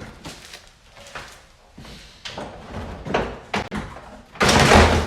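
Plastic front bumper cover of a Mazda3 sedan being pulled off the car: a series of knocks and clunks as it is worked free. The loudest, longest clunk comes near the end, as it comes away.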